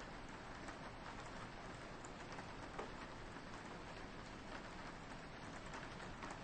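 Steady soft rain with scattered individual drops ticking on a window pane.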